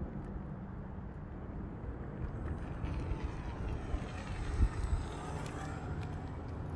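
Electric unicycle's hub motor whining faintly, the whine gliding up and down in pitch from about three seconds in, over a steady low rumble.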